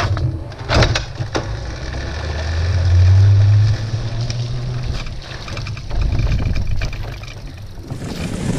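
Electrom light electric vehicle rolling over wet, leaf-strewn pavement, heard from a camera mounted beside its front wheel: tyre hiss on the wet surface with a low wind rumble on the microphone, loudest about three seconds in, and a few sharp clacks about a second in.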